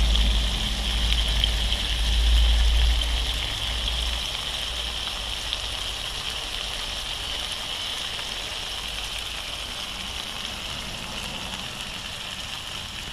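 Minced pork and tomato chilli sauce sizzling and simmering in a wok: a steady hiss like rain. A low rumble underneath for the first four seconds or so, then fading.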